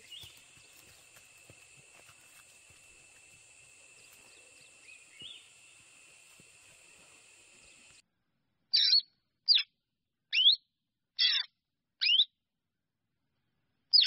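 Faint outdoor ambience with a steady high whine and an occasional small bird chirp, cutting off suddenly about eight seconds in. After that come five loud, short bird calls over silence, each a quick sweep, a little under a second apart.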